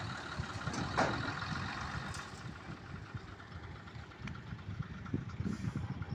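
Diesel engine of heavy road-construction machinery running steadily at a low rumble, with a short louder clatter about a second in.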